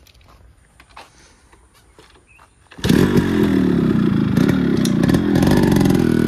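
Yamaha RX135's single-cylinder two-stroke engine starting: a few faint clicks, then it catches suddenly about three seconds in and runs loud, being revved with the pitch rising and falling.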